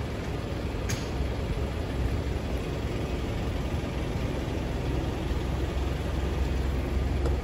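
Steady low mechanical rumble, like an engine idling, under a haze of street noise, with one sharp click about a second in.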